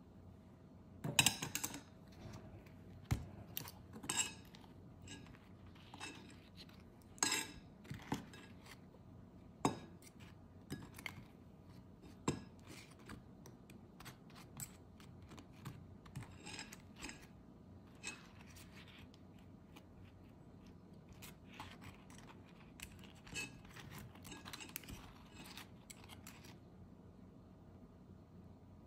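Irregular clinks and knocks of kitchen utensils against dishes, some sharp and some soft, over a faint steady hum.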